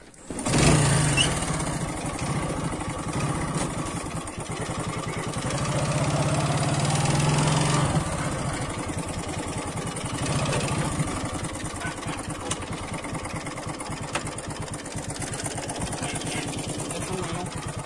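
Motorcycle engine starting about half a second in, then running as the bike pulls away. The engine note rises over a few seconds, eases back about eight seconds in, then runs on with an even putter.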